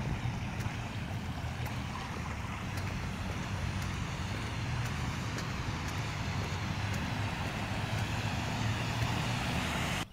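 Steady road noise from a car moving slowly along wet pavement: a low rumble with a hiss of tyres on the wet road.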